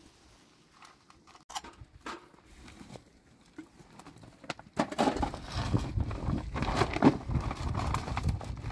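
Scattered light taps and knocks, then, about five seconds in, a loud rush of wind buffeting the microphone, with a deep rumble and crackling.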